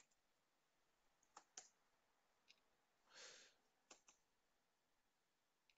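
Faint, scattered computer keyboard keystrokes, about seven separate clicks, with a brief soft hiss about three seconds in.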